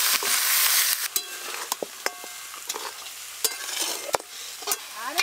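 Raw goat meat sizzling loudly as it goes into a wok of hot mustard oil. The hiss settles after about a second while a long metal spatula stirs the meat, scraping and knocking against the pan.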